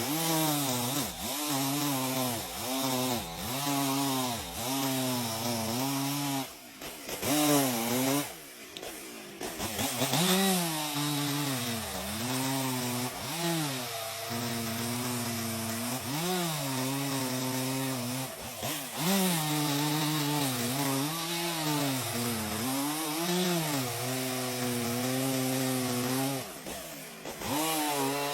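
Chainsaw cutting into a large tree trunk, its engine pitch sagging under load and picking up again over and over, about once a second, with a short drop and rev-up partway through.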